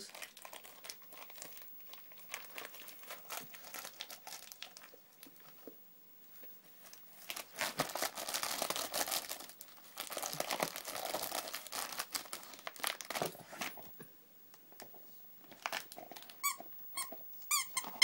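A dog tearing and chewing at crinkly plastic packaging from a dog's Christmas stocking, in patchy bursts of crackling and tearing. Near the end, a dog's squeaky toy squeaks several times in quick succession as he bites it.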